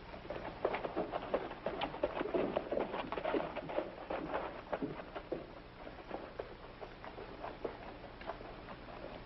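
Horse hooves clopping at a quick gait, then thinning to a few slower, fainter steps after about five seconds as the horse comes to a stop.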